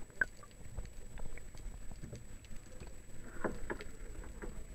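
Underwater sound picked up by a submerged camera: a low muffled rumble with scattered small clicks and knocks, a cluster of them about three and a half seconds in, over a faint steady high whine.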